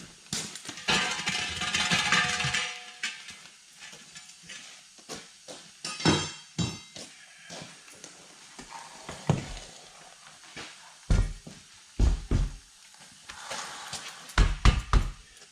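Steel tools clanking and knocking against a heavy truck's steel wheel and tire. About a second in there is a longer, ringing metallic scrape, and heavier thumps come near the end.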